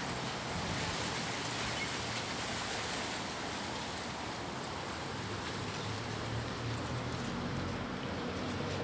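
Strong wind blowing steadily, a constant rushing noise.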